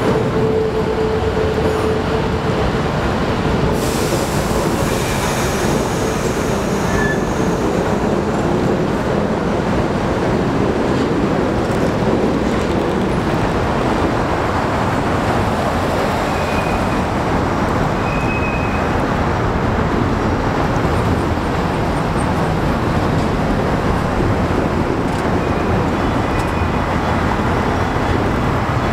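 Diesel work locomotive and the flat cars it tows moving slowly along the track: a steady, dense rumble, with a held tone in the first few seconds that fades out.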